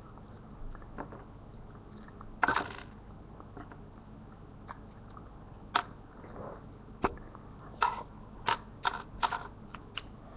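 Small plastic Lego pieces being handled, giving scattered sharp clicks and short rattles, with the clicks coming more often in the last few seconds.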